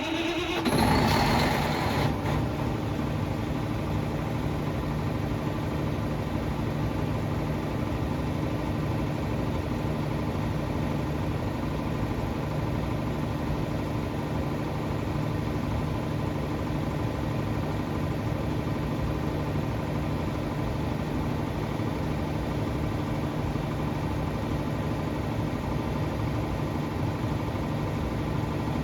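FG Wilson 715kVA diesel generator set running just after start-up: the diesel engine flares briefly louder in the first two seconds, then settles into a steady, even run.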